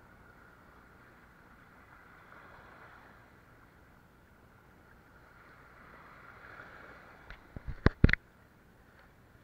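Sea water lapping softly. Near the end comes a quick cluster of sharp clicks and knocks as a small fish is lifted out of the water on a light spinning rod.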